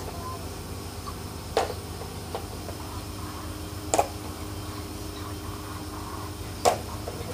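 Three sharp knocks, about two and a half seconds apart, from hand tools working on a disassembled shrimp-pond blower while its pulley is being taken off. Each knock rings briefly, over a steady low hum.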